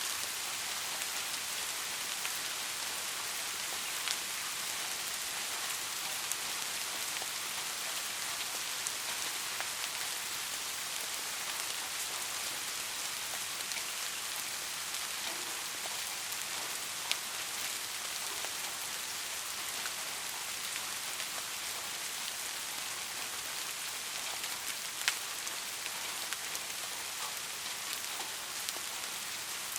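Steady rain falling, an even hiss with scattered individual drops ticking, one sharper drop hit about 17 seconds in and another about 25 seconds in.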